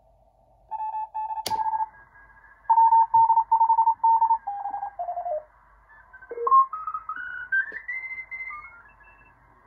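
Morse code (CW) signals from a uBITX transceiver's speaker: on-off keyed beat-note tones at a few different pitches, with a sharp click about a second and a half in. From about six seconds the tones step upward in pitch as the receiver is tuned across the band, heard through the wide passband without the narrow CW audio filter.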